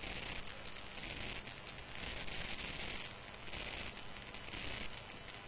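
Steady hiss and faint crackle of recording noise from the lecture microphone, with no speech. The upper hiss swells and fades about once a second.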